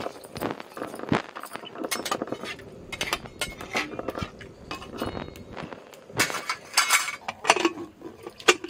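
A steel ladle stirring khichdi in an aluminium pressure cooker, clinking and scraping against the pot in a run of quick clinks. Near the end there is a louder metal clatter as the pressure-cooker lid is set on.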